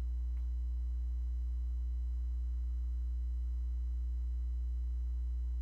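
Steady low electrical mains hum from the sound system, an unchanging buzz with a few higher overtones.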